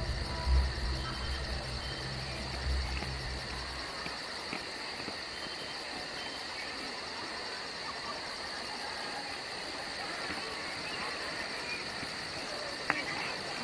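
Night insects, crickets, chirping: a steady high trill with a rapid, even pulsing chirp above it that pauses briefly about halfway through.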